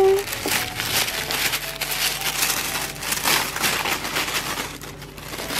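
Tissue paper and packing inside a cardboard box crinkling and rustling as they are disturbed, a continuous irregular crackle.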